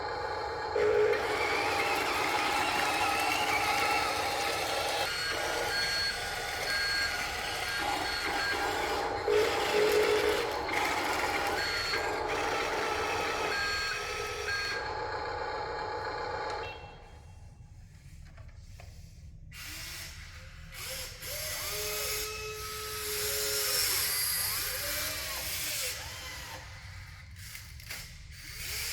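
Radio-controlled construction models working: small electric motors and gearboxes whirring with a steady high whine for about the first sixteen seconds, then quieter, with short rising and falling motor whines for the rest.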